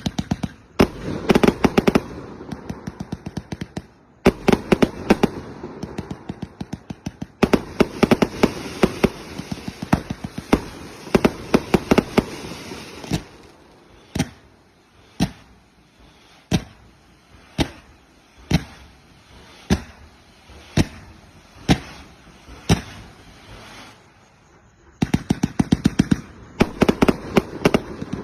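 Firecrackers going off: long runs of rapid crackling pops, then single loud bangs about once a second, then rapid crackling again near the end.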